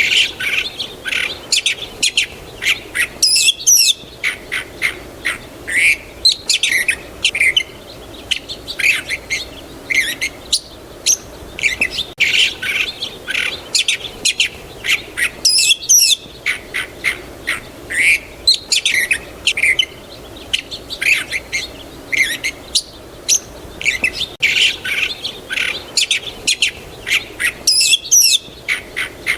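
Birds chirping and calling, many quick high chirps overlapping in a busy, continuous chorus.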